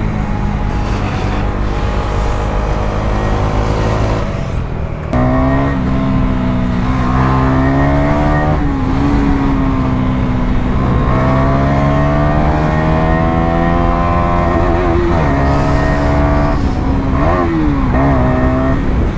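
KTM Duke 250's single-cylinder engine under way, its pitch climbing repeatedly as it pulls through the revs. It drops off briefly about four to five seconds in, as at a gear change, then rises again.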